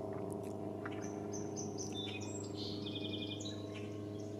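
A songbird singing a short, varied phrase of high notes that ends in a quick trill, over a steady low hum.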